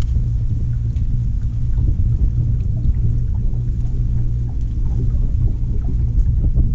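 Steady low rumble of wind buffeting the camera microphone on an open boat deck, with faint scattered ticks above it.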